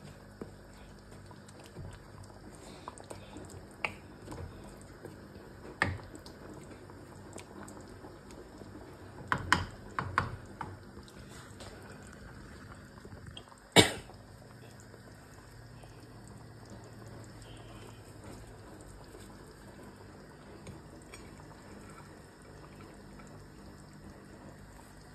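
Wooden spatula stirring a thick beef and potato stew in a wok: wet stirring sounds with several sharp knocks of the spatula against the pan, a quick group of them about ten seconds in and the loudest at about fourteen seconds.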